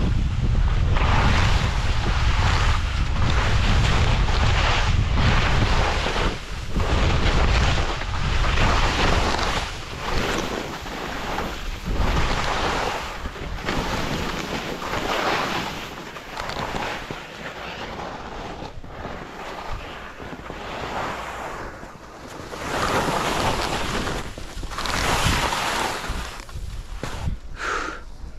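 Skis scraping and carving through mogul snow, one swish about every second as the turns follow each other. Wind buffets the microphone heavily for the first several seconds, then eases.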